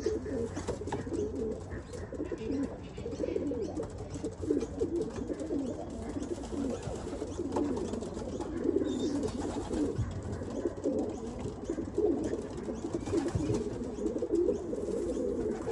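A flock of racing pigeons cooing continuously, many low coos overlapping, with faint scattered clicks.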